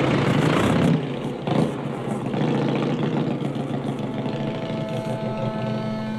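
Vespa scooter's two-stroke engine running, louder for the first second, with a brief loud burst about one and a half seconds in. From about four seconds a steady high tone joins it.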